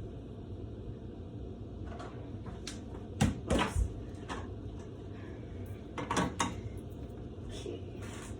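Knocks and clatters of kitchen handling, like a cupboard door and containers being moved, in two short clusters about three and six seconds in, over a steady low background noise.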